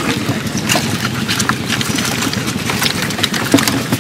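A small boat's motor idling steadily, with scattered clicks and knocks over it.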